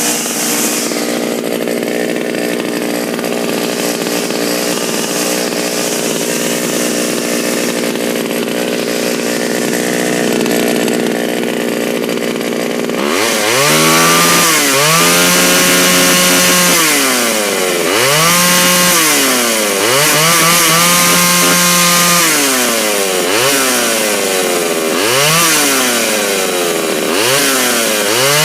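Pioneer P28 two-stroke chainsaw engine idling steadily, then, from about halfway through, revved up and let fall back to idle several times in quick succession. The saw runs well after sitting unused for over 15 years.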